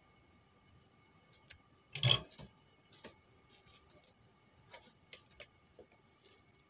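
Light clicks and taps from handling a small circuit board and tools on a workbench, with one louder knock about two seconds in, over a faint steady electrical hum.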